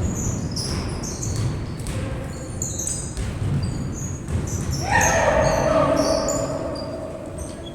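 A person's drawn-out shout about five seconds in, slightly falling in pitch, over a steady low rumbling noise and scattered short high chirps.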